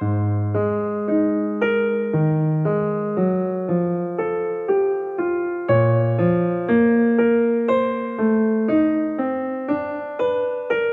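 Piano music: a slow melody of single struck notes, about two a second, each fading away, over lower bass notes.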